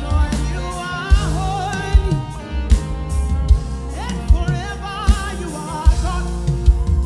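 Live gospel worship music: a band with drum kit, bass and guitar playing a steady beat, with a voice singing wavering lines over it.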